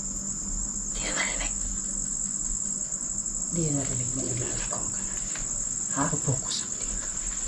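Crickets trilling in a steady, high-pitched chorus, with a short falling voice-like sound about halfway through.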